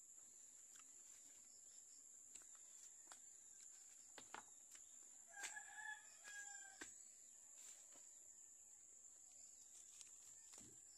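A rooster crowing faintly about halfway through, a call of two parts lasting under two seconds, over a steady high-pitched insect drone. Scattered soft clicks come from jackfruit bulbs being pulled apart and eaten.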